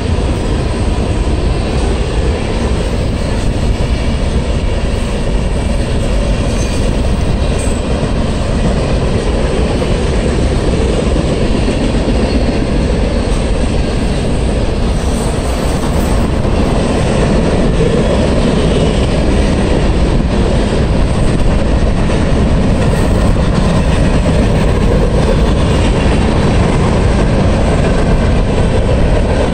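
Freight train's tank cars and covered hopper cars rolling past at speed: a steady rumble and clatter of wheels on rail, a little louder in the second half.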